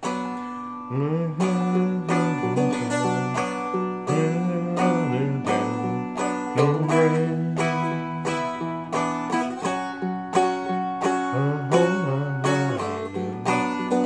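Seagull Merlin, a small fretted dulcimer-style instrument, played in a steady rhythm of strums and picked notes over ringing drone strings, holding a B minor chord through a chorus.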